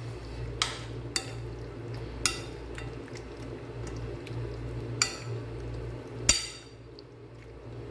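Spoon stirring chicken wings through a wet spice marinade in a ceramic bowl, with about five sharp clinks of the spoon against the bowl. The loudest clink comes a little after six seconds in, and the stirring is quieter near the end.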